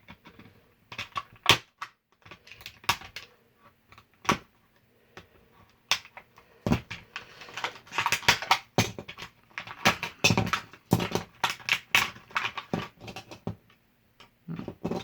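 Toy packaging being worked open by hand: a run of sharp clicks, taps and plastic crackles, scattered at first, then coming thick and fast for several seconds in the middle.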